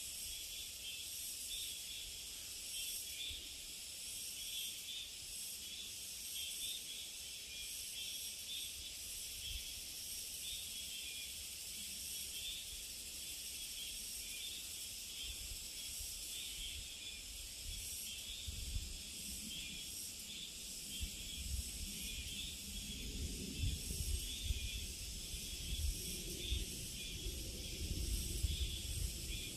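A chorus of insects making a steady, high-pitched buzzing. From about halfway in, irregular low rumbles come and go underneath.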